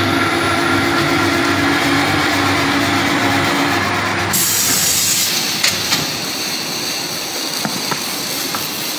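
Tyre-cutting machine running as it turns a car tyre on its roller and cuts it: a steady mechanical noise with a hiss. The sound changes character about four seconds in, and a few sharp clicks come about six seconds in.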